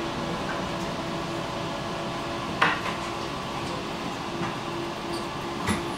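Inside a tram: a steady electrical hum with light rattling, and a sharp click about two and a half seconds in and a few more near the end.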